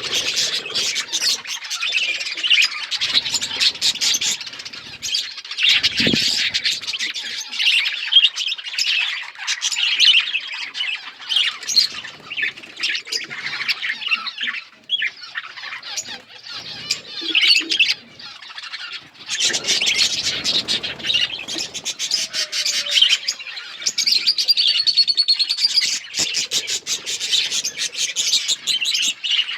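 Flock of budgerigars chirping, chattering and squawking, several birds at once in a dense, continuous warble.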